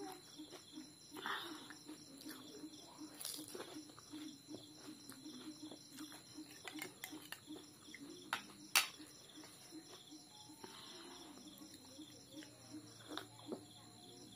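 Close eating sounds of pani puri: chewing and handling the food, with sharp clicks of a metal spoon against a plate, the loudest about nine seconds in. A faint, evenly pulsing high sound runs in the background.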